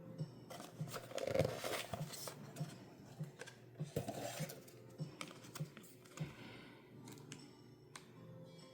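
Packaging being handled: crinkly rustling, loudest about a second in and again around four seconds in, with scattered sharp clicks and taps.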